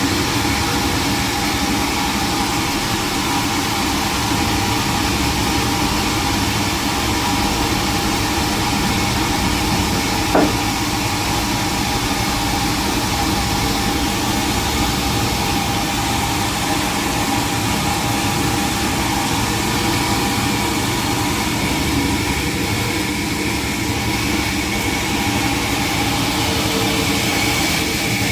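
Sawmill machinery running steadily, a constant engine-like drone with several held tones. A single short knock sounds about ten seconds in.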